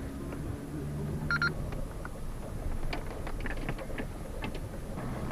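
Off-road 4x4's engine running low, heard inside the cabin while driving over rough grass, with scattered knocks and rattles from the body and suspension. A brief beep sounds about a second in.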